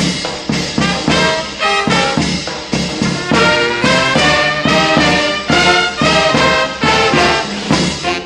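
Regional brass band playing a lively tune on a regular, steady beat, with cornets carrying the melody.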